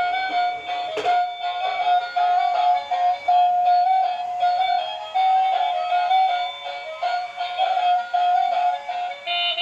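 Light-up transparent toy bus playing its built-in electronic tune, a simple stepping melody, with a sharp knock about a second in.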